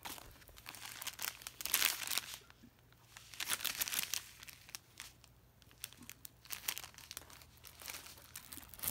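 Plastic packaging crinkling and rustling in irregular bursts as a diamond painting kit's wrapped canvas and bagged drill strips are handled.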